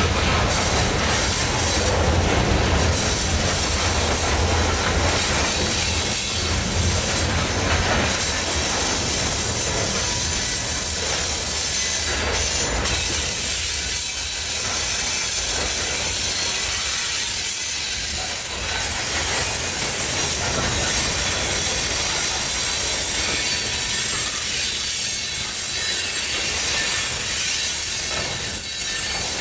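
Loaded steel coal hopper cars of a freight train rolling past: a steady rumble of wheels on rail with a high hiss and occasional clicks.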